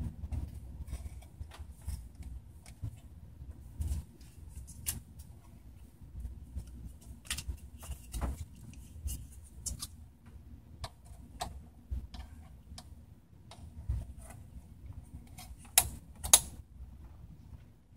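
Scattered, irregular small clicks and taps over a low rumble, with two louder clicks about half a second apart near the end.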